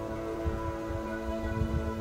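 Background music of sustained, layered held chords.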